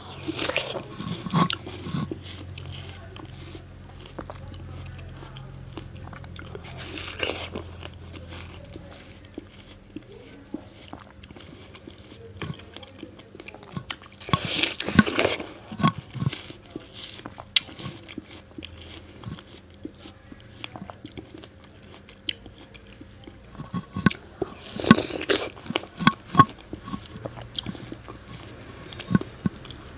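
Close-up watermelon eating: four crisp bites spaced several seconds apart, with steady chewing clicks in between.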